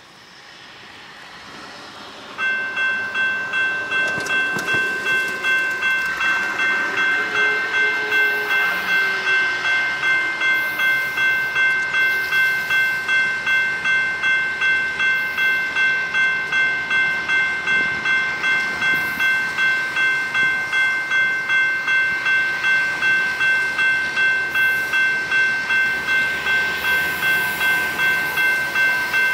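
Railroad grade-crossing warning bell ringing steadily at about two strokes a second, starting a couple of seconds in as the crossing is activated for an approaching train. A faint low rumble from the oncoming train runs underneath.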